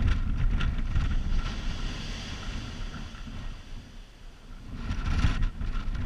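Wind buffeting the microphone in gusts, easing about four seconds in and picking up again near the end, over the hiss of surf washing on the beach.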